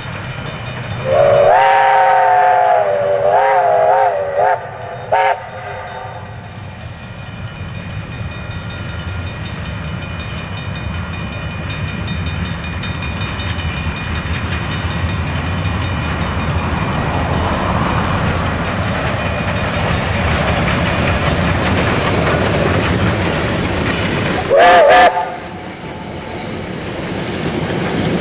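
Steam locomotive whistle: a long blast with a wavering pitch, then two short toots. The locomotive and its carriages run past, the rumble slowly growing louder, and one more short whistle blast comes near the end.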